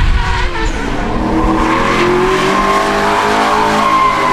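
Holden Commodore drift car's engine under throttle, its note climbing steadily as it revs up over a couple of seconds.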